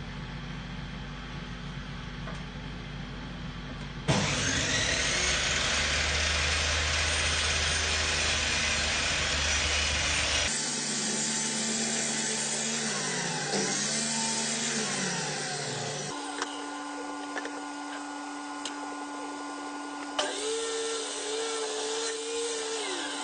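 Table saw running and crosscutting glued-up wooden panels to length, in several short stretches that change abruptly from one to the next.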